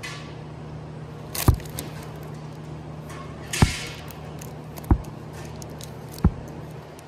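Vinyl LP records in plastic sleeves flipped one by one through a plastic crate: a short sliding rustle, then a sharp slap as each record drops against the stack, four times about every second and a half. A steady low hum runs underneath.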